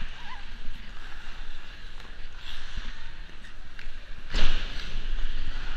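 Ice skate blades gliding and scraping on rink ice under a steady low rumble of air on the camera's microphone, with one sudden, louder scrape about four seconds in.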